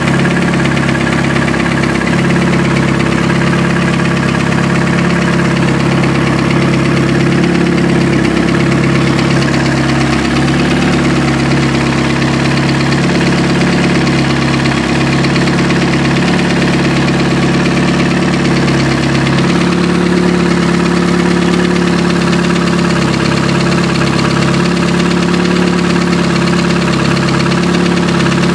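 Chrysler 420A turbocharged 2.0-litre four-cylinder engine running steadily with a noise that began after it overheated. New lifters and fresh oil have not cured it, and the rod bearings and crankshaft play check out fine.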